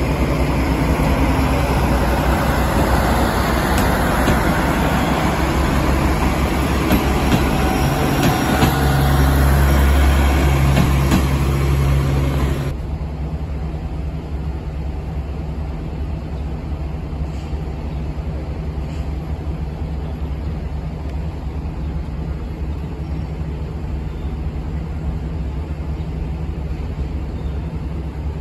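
Loud running noise of a train close by, a dense rattle over a steady low hum, cut off abruptly about 12 seconds in. A quieter steady low rumble of trackside ambience follows.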